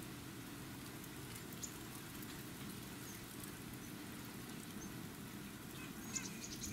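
Steady low outdoor background rumble with faint, short high-pitched bird chips scattered through it and a quick cluster of them near the end.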